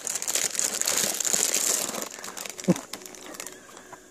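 Clear plastic cracker wrapper crinkling as a child's hands fumble with it, dense for about two and a half seconds and then dying down. A brief voice sound comes about two and a half seconds in.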